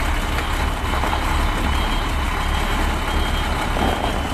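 Heavy Shacman dump truck's diesel engine running at idle, a steady low rumble. Faint short high beeps repeat in the second half.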